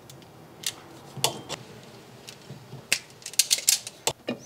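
Self-adjusting hand wire stripper snapping shut as it cuts and strips thin wires: a string of sharp clicks, several in quick succession about three and a half seconds in.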